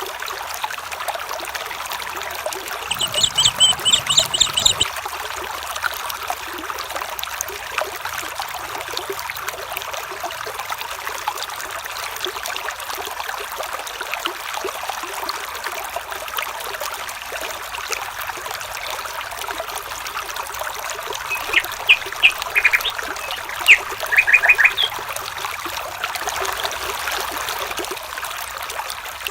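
A stream trickling steadily, with bird calls twice: a short burst of quick repeated high notes about three seconds in, and another cluster of chirps near the end.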